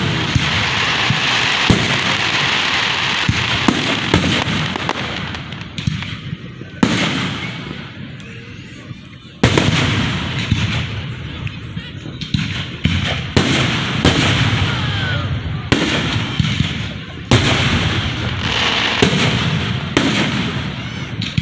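Fireworks display going off close by: a string of loud bangs, one every second or two, each with an echoing tail, and crackling hiss from the shells in between.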